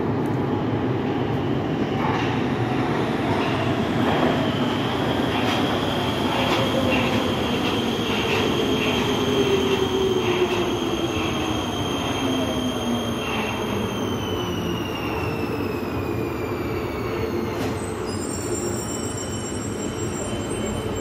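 Prague Metro M1 train pulling into the platform and braking to a stop, with regular wheel clacks early on. A low whine falls steadily in pitch as it slows, and high squealing tones glide down in the last seconds before it halts.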